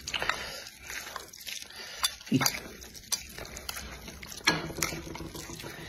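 Close-miked eating: chewing and the wet squish of sauce-coated noodles, with sharp clicks of chopsticks against the bowl. A short hummed voice comes in about four and a half seconds in.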